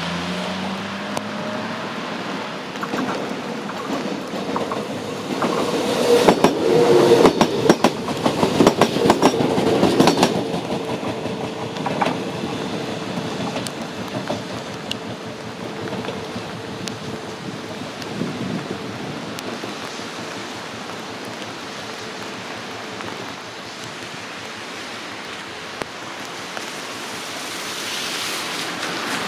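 Fujikyu 8000 series electric express train running past, its wheels clacking over the rail joints with a steady hum under the rumble. The clacking is loudest for a few seconds about a quarter of the way through, then eases back to a lower rumble.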